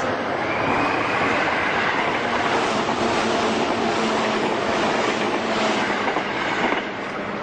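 Japanese commuter train running: a steady, noisy rumble with a faint high whine, dropping off sharply near the end.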